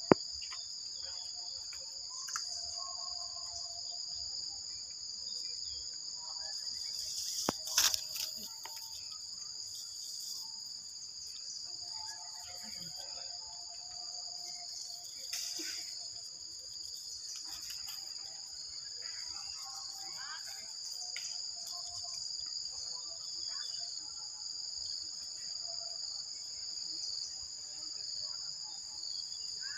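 Steady, high-pitched drone of insects in the forest. A sharp click sounds right at the start, and a brief louder cluster of clicks and rustling about seven and a half seconds in.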